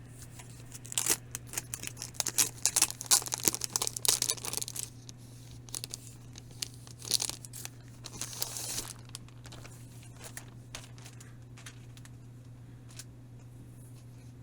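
Packaging being torn open and crinkled by hand: a dense run of tearing and crackling for about four seconds, a shorter burst a little later, then a few light clicks.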